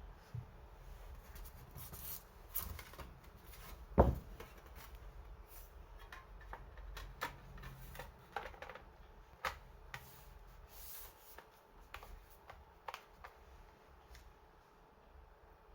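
Irregular small clicks and taps of hands handling laptop parts and plastic casing, with one louder knock about four seconds in.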